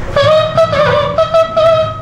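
A mimicry performer voicing a wind-instrument-like melody into a microphone: held notes that step up and down in pitch.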